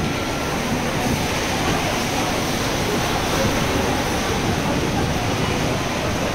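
Heavy rain falling on a city street: a steady, even rush of noise.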